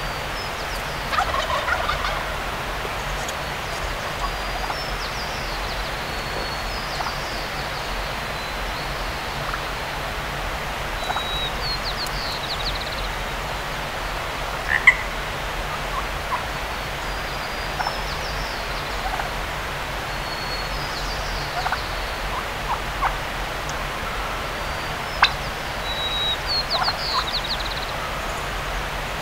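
Wild turkey gobbling: one rolling gobble about a second in and another near the end.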